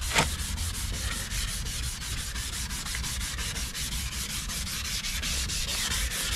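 Sandpaper rubbed by hand in quick, even back-and-forth strokes over a plastic car headlight lens, making a steady scratchy rasp. This is coarse 800-grit wet sanding, cutting away the lens's oxidised, matte surface layer.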